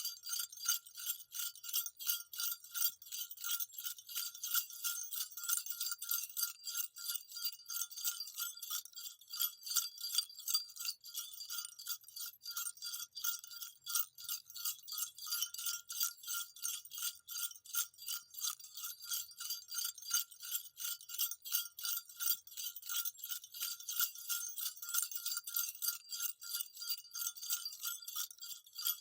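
Small jingle bells shaken continuously: a rapid, unbroken high metallic jingling with no low sound beneath it.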